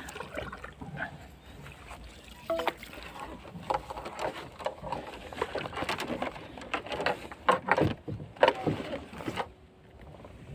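Irregular splashing and knocking in water, a quick run of sharp splashes that grows loudest near the end and then stops.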